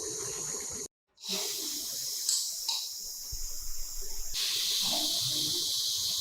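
A steady hiss with a brief gap of silence about a second in, then resuming and shifting in level a few times.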